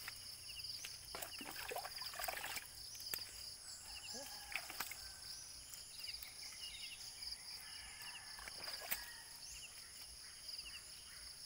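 Intermittent splashing and rubbing of water as a motorcycle's underside is washed by hand, busiest about one to two seconds in, with a few sharp clicks later. Behind it, a steady pulsing chorus of chirping insects.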